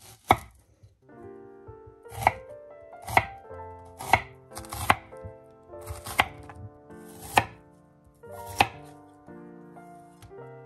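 Chef's knife slicing an onion on an end-grain wooden cutting board: eight separate cuts, each ending in a sharp knock of the blade on the board, roughly one a second. Soft keyboard music plays underneath from about a second in.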